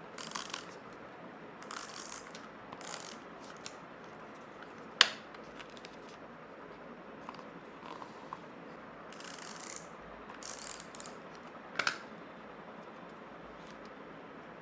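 Handling sounds: several short, scratchy rasps and two sharp clicks, the louder click about five seconds in.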